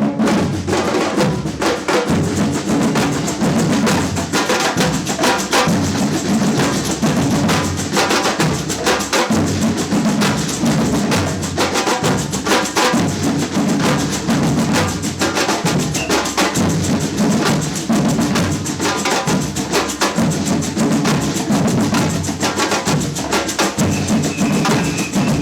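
Samba batucada percussion ensemble playing a driving groove: deep bass drums pulse under dense snare and hand-percussion strokes.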